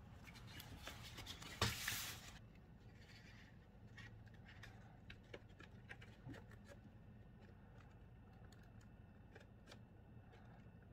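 Faint rustling and scraping of gloved hands handling a plastic dash air vent and facia during a test fit. There is a sharp click about two seconds in, then light scattered plastic ticks.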